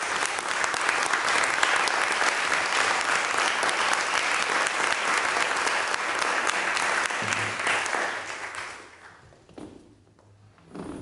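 Audience applauding, the clapping dying away about eight or nine seconds in, followed by a few light knocks.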